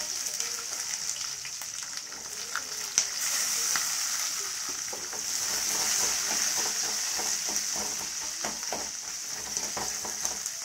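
Chopped onions sizzling in hot oil in a metal kadai, just added to a tempering of peanuts, dal, mustard and cumin, while a steel spatula scrapes and taps the pan as they are stirred. A sharp click about three seconds in.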